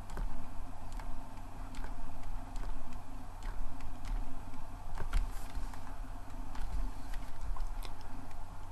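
Faint, irregular clicks and taps of a stylus writing on a tablet, over a steady low hum.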